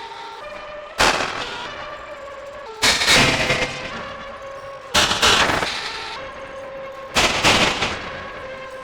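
Heavily distorted electronic percussive hits processed through the Glitchmachines Subvert distortion plug-in: four sharp hits about two seconds apart, each sliding off into a harsh, noisy decaying tail over a held metallic-sounding tone.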